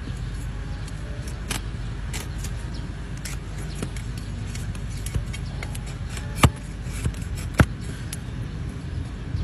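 Broad cleaver-style blade paring and chopping through donkey hoof horn: a run of short cutting clicks and crunches, with two louder snaps about a second apart a little past the middle. A steady low rumble sits underneath.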